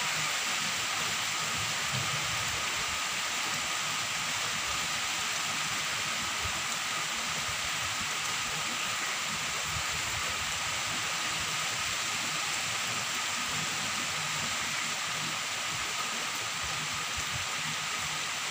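Heavy rain falling on trees, grass and a road: a steady, even hiss with no let-up.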